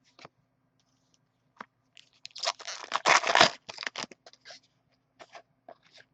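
Trading card pack wrapper crinkling and tearing open for about a second and a half, with light clicks and taps of cards being handled before and after.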